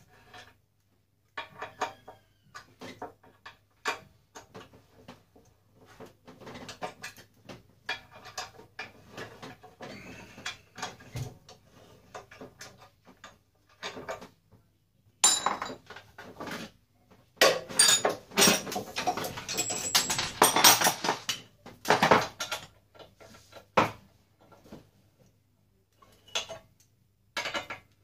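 Steel parts and tools of a heat press clinking and rattling as it is taken apart by hand: scattered small clicks, then a louder stretch of clattering from about halfway in until near the end.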